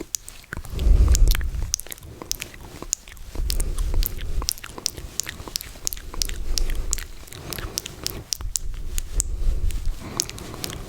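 ASMR mouth sounds close to the microphone: a steady stream of sharp, wet tongue and lip clicks and smacks, with a low muffled swell every few seconds.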